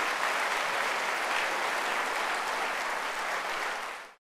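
Audience applauding, a steady dense clapping that fades and cuts off just before the end.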